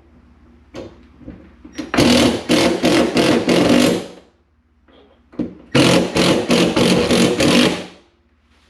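Power drill driving screws in two runs of about two seconds each, with a fast, even pulse.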